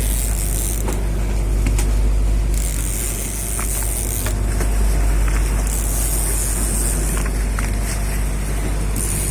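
Boat engine running steadily, with a low rumble and a high hiss that swells and fades every second or two.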